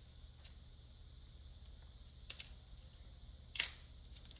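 Sharp clicks and snaps of tools and plastic and metal parts as a GFCI receptacle is pried apart by hand. There are a couple of light clicks, then one loud crisp snap near the end, over a low steady hum.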